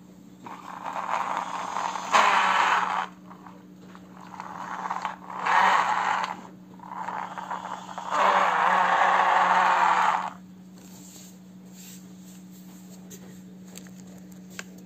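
Plastic toy excavator pushed by hand, its tracks and wheels scraping across the floor and a rug in four bursts of a few seconds each.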